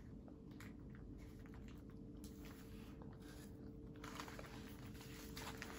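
Faint crinkling and small clicks of an ice cream bar's wrapper being picked at and torn by hand as the chocolate coating is peeled off, more busily near the end, over a low steady hum.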